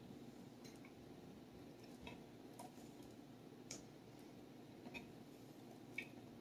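Near silence with a few faint, scattered ticks: a spatula scraping and tapping inside a tin can of condensed soup.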